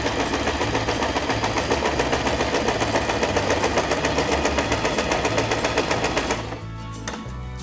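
Janome TR1018 sewing machine stitching at a short stitch length, its needle mechanism clattering in a fast, even rhythm that stops about six and a half seconds in.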